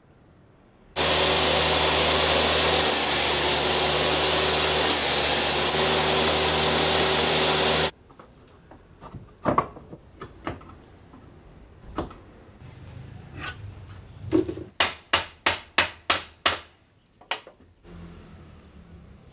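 A table saw runs and cuts wood for about seven seconds, then cuts off suddenly. Chisel work on hardwood follows: scattered knocks, then a quick run of about eight sharp taps.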